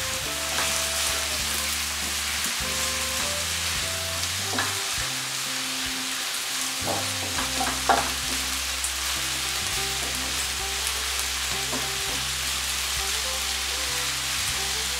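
Sliced bell peppers and onions sizzling in a frying pan as a wooden spatula stirs them, with a few light knocks of the spatula against the pan, the sharpest about eight seconds in.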